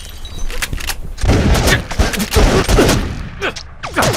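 Gunfire sound effects: a rapid volley of many shots, heaviest from about a second in, with shouting voices among them.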